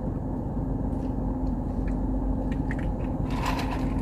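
Steady low rumble inside a car with the engine running, with a constant hum and a few faint ticks near the end.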